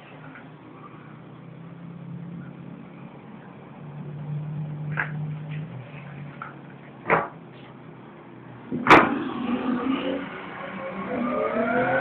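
Motor vehicle engine sound: a low steady hum that fades and returns, with two sharp knocks about seven and nine seconds in, the second the loudest, and an engine note rising near the end.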